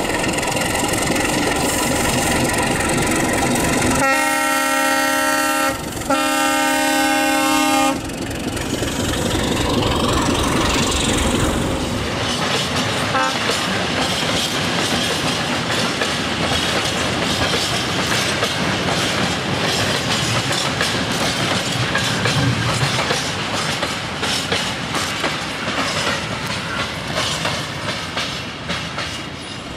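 ČKD T669-type diesel locomotive running, then sounding its multi-tone horn in two long blasts about four seconds in. The tank wagons then roll past with a rapid clickety-clack of wheels over the rail joints.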